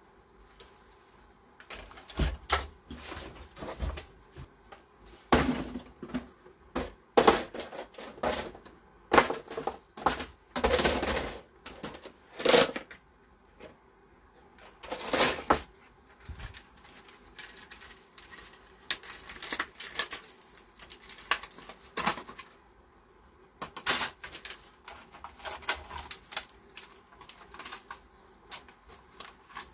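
Hard plastic containers, clear plastic packaging and computer parts being handled and set down on a wooden workbench: irregular clicks, knocks and rattles, with a few longer rustling scrapes of plastic.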